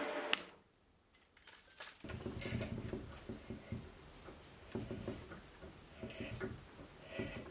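A machine spindle running stops within the first half second. From about two seconds in, a hand tap in a tap wrench is turned into a drilled hole in a metal ferrule, giving faint, irregular scraping and small clicks as it cuts the thread for a grub screw.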